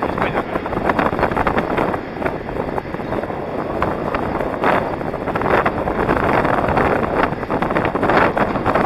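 Wind buffeting the microphone of a camera worn by an inline skater moving fast, over the rush of inline skate wheels rolling on asphalt. The noise swells and eases irregularly.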